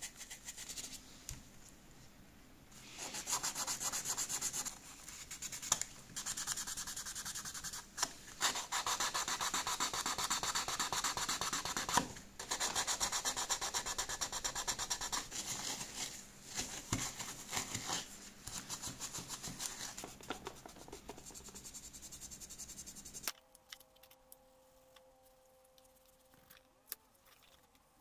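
Green scouring pad scrubbing a wet toy Jeep part with quick back-and-forth strokes, in spells broken by short pauses. About 23 seconds in it drops off sharply to much quieter, faint rubbing over a low steady hum.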